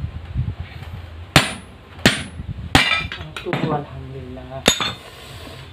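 Hand hammer striking steel machine parts: four sharp, ringing metal blows, three in quick succession about two-thirds of a second apart and a fourth about two seconds later, over a steady low hum.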